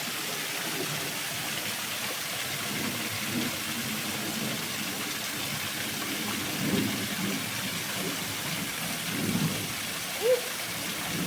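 Steady rushing hiss of a waterfall. Faint low voice-like sounds come and go over it, and a short, louder rising sound comes near the end.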